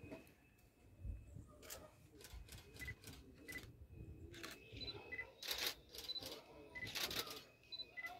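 Camera shutters clicking irregularly, several in quick bursts, with short high peeps in between.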